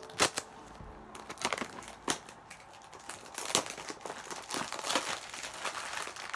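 Plastic wrap on a perfume box crinkling and tearing as it is picked at and peeled off: a run of irregular sharp crackles and snaps.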